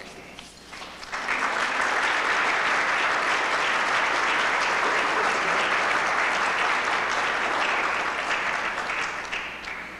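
Dinner audience applauding. The clapping swells in about a second in, holds steady, and fades away near the end.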